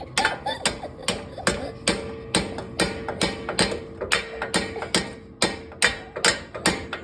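Hammer blows on the stuck front wheel hub assembly of a 1998 Jeep Cherokee XJ, about two and a half strikes a second in a steady rhythm. The hub rings with a metallic tone between blows as it is beaten to knock it loose.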